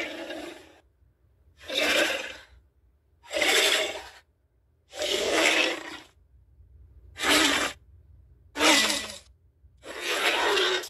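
A series of short, rasping Vastatosaurus rex creature calls, movie sound effects: the tail of one call at the start, then six more, each under a second long with gaps of about half a second to a second between them.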